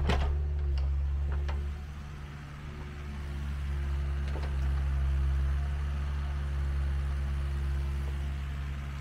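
Compact excavator's diesel engine running steadily, with a few faint knocks, one near the start and one about four seconds in.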